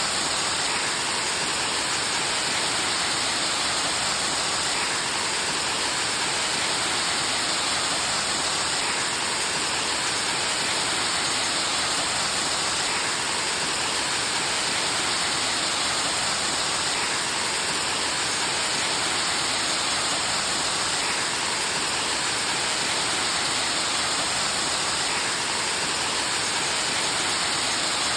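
Waterfall rushing: a steady, unbroken hiss of falling water, strongest in the upper range, with no distinct splashes or breaks.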